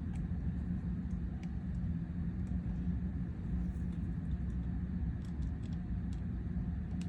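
Steady low hum, with faint light clicks and ticks scattered through it as small screws and metal parts are handled.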